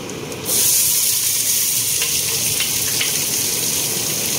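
Chopped red onions hitting hot oil in a pot and sizzling, the hiss starting suddenly about half a second in and carrying on steadily with a few light crackles.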